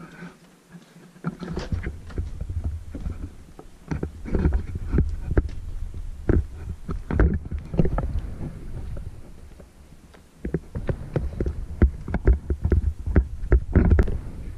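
Handheld action camera handling noise with footsteps on wooden deck boards: low rumbling thuds and irregular knocks that ease off briefly past the middle and pick up again.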